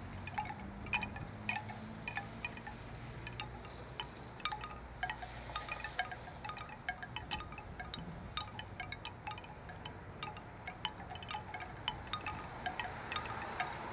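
Chimes tinkling in many small, irregular pings, with a low hum underneath that fades out over the first several seconds.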